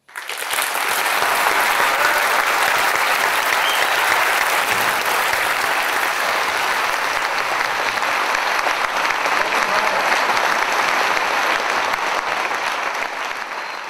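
Audience applauding: dense, steady clapping that starts at once, holds, and begins to fade near the end.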